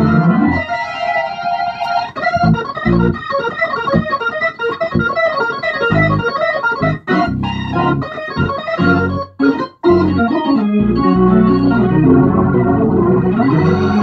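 Hammond organ played through a freshly refurbished Leslie 147 amplifier: held, wavering chords, then a run of short detached chords with brief breaks, settling back into held chords about ten seconds in.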